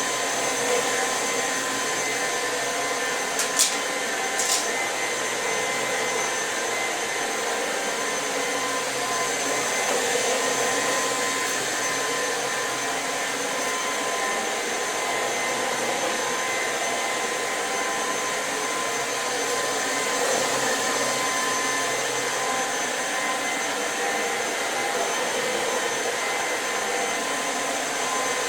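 Electrolux Pure F9 stick vacuum running steadily at full power: a dense rushing noise with a high motor whine. There are two brief sharp clicks about three and a half and four and a half seconds in.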